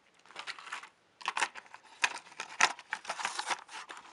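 Small plastic Thomas Minis toy trains being handled, with many quick irregular clicks and rustling that start about a third of a second in and get busier after about a second.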